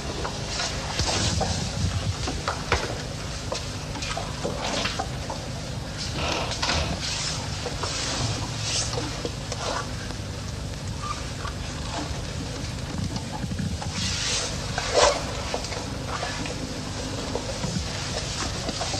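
Irregular small knocks, scrapes and rustles as a woman handles and puts on high-heeled shoes, over a steady low hum.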